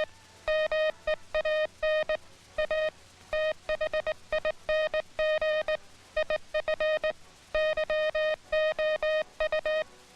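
Morse code sent on a key through a tone oscillator: one buzzy tone switched on and off in short dits and longer dahs, in groups with short pauses between letters.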